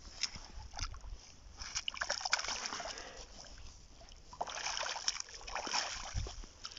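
A caught trout thrashing in shallow water, splashing in two bouts a second or so apart.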